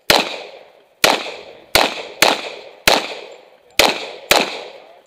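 Seven shots from a Springfield TRP 1911 pistol, fired at an uneven pace with some in quick pairs about half a second apart, each trailing off in a short echo.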